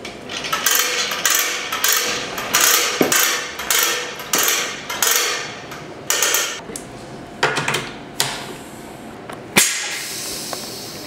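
Retractable air hose reel rattling as its hose is pulled out in a series of quick tugs, one short ratcheting rasp to each tug, about two a second, dying out after about seven seconds. Near the end comes a single sharp click and then a steady hiss.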